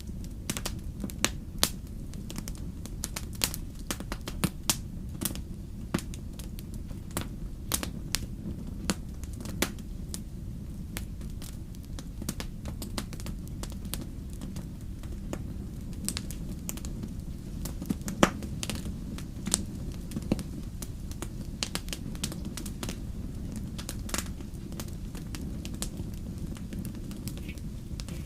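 Wood fire burning in a home fireplace, crackling with many irregular sharp pops and snaps, the loudest about eighteen seconds in, over a steady low rumble.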